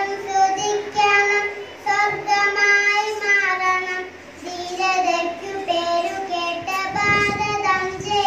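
A small girl singing into a microphone, one child's voice holding notes in short phrases with brief pauses between them.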